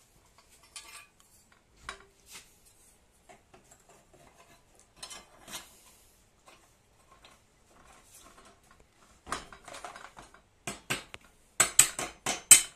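Light metallic clinks, taps and scrapes as a sheet-metal trapdoor flap and its wire axle are worked into place inside a PVC pipe, with a quick run of louder metal clinks near the end.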